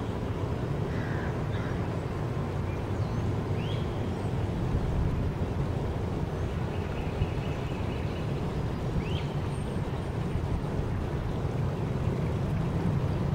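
Steady low outdoor rumble with a few short bird chirps. From about six seconds in, a faint high whine from a radio-controlled airboat's brushless motor and propeller at light throttle runs for a few seconds.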